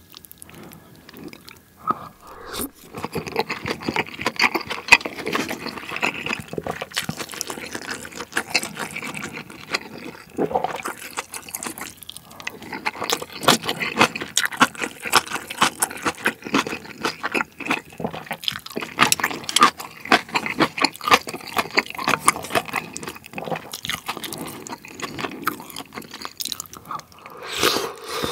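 Close-miked eating of pork-and-rice soup: a spoon stirring and scooping in the broth, slurping and chewing, with many small wet clicks. It starts about two seconds in.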